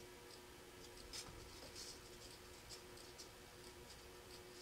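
Near silence with faint scratching and a few small clicks: a tapered cut-out piece of pine being worked loose from the sawn block by hand. A faint steady hum sits underneath.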